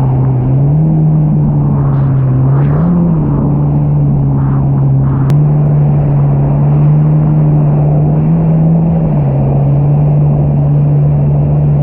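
Jet ski engine running steadily under way. Its pitch steps up and down a little with the throttle.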